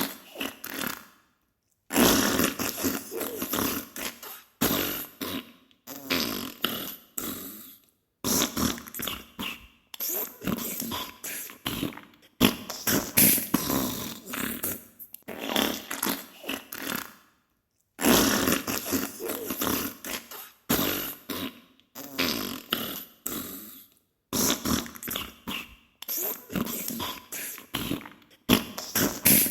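Diarrhea sound effect: wet, sputtering farts in runs of rapid spurts, each run lasting a few seconds, broken by short silent gaps.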